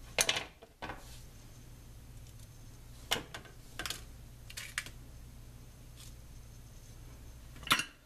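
Pliers and wire cutters being handled and set down on a workbench: a handful of sharp separate clicks and clacks, the loudest just after the start and near the end.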